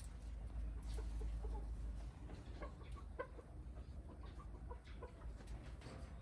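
Brown hens clucking in short, scattered calls, over a steady low rumble.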